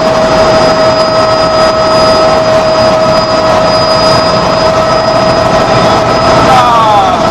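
Helicopter in flight: a loud, steady noise of rotor and engine with a constant high whine running over it.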